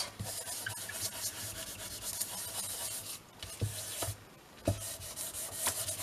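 Ink blending tool rubbing ink onto the edges of a paper pouch: repeated scratchy rubbing strokes with short pauses about three seconds in and just after four seconds.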